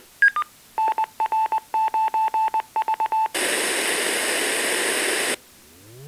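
Yaesu Vertex MLS-100 communications speaker playing a test file: a brief two-note beep, then a Morse code ID keyed in a steady tone, then about two seconds of pink noise hiss that cuts off suddenly, and near the end the start of a rising sine sweep.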